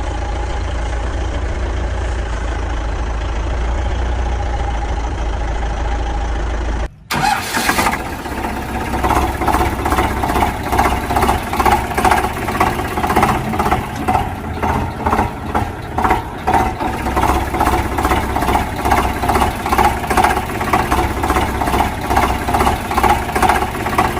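Vehicle engine running: a steady low hum, then, after an abrupt break about seven seconds in, a louder engine that pulses a few times a second.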